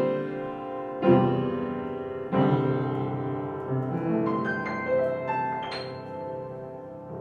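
Conover Cable upright piano being played: three full chords struck about a second apart, then a short run of higher notes climbing upward, the last notes left to ring and fade away.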